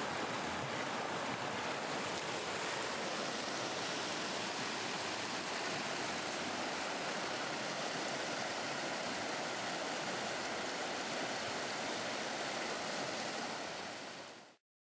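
Fast mountain river rushing over rocks in white-water rapids at spring flow, a steady, even roar of water. It fades a little near the end, then cuts off suddenly.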